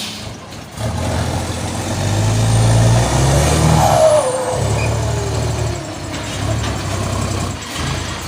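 Heavy truck's diesel engine running and revving up and down in several surges, with a whistle that rises and falls about midway.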